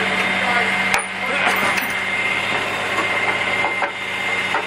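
An engine idling steadily, with a sharp knock about a second in and scattered wooden knocks after it as the heavy wooden-wheeled steam fire pump is shifted on its platform.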